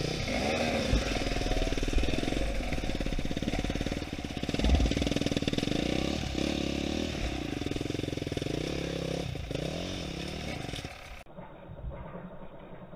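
Enduro dirt bike engine revving up and down as the bike climbs a rocky trail, the throttle opening and closing in short bursts. About eleven seconds in the engine sound drops away abruptly and turns much quieter.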